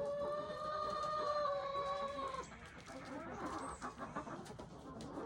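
A rooster crowing, one long held note of about two and a half seconds. Hens cluck after it.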